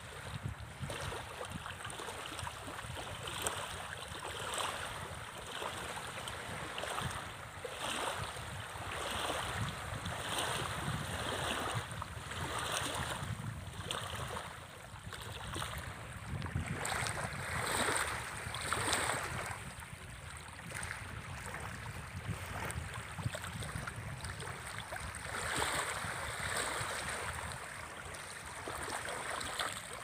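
Small freshwater waves lapping and washing onto a shallow muddy reservoir shore. The wash swells about once a second and is loudest a little past halfway.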